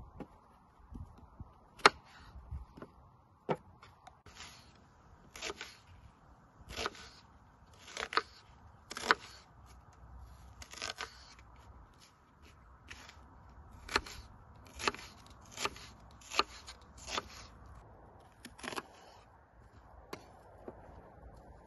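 Kitchen knife cutting whole peeled onions on a wooden cutting board: a series of sharp knocks as the blade goes through and strikes the board, roughly one a second with a short pause partway through.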